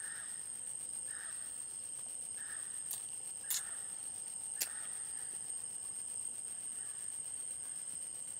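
Forest ambience: a steady high-pitched insect drone, with a short call repeated about once a second that fades out after about five seconds, and three sharp clicks around the middle.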